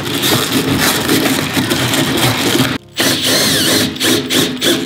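Cordless drill running in short bursts, stopping briefly about three seconds in and then starting again.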